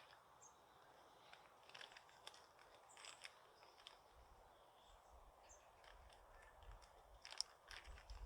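Near silence: faint outdoor ambience with scattered soft crackles and a few brief, high bird chirps.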